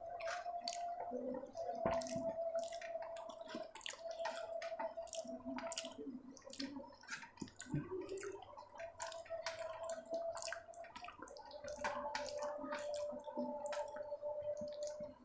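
Close-miked eating sounds: wet chewing and many sharp mouth clicks on soft sabudana khichdi, with fingers gathering food on a steel plate. A steady faint tone runs underneath.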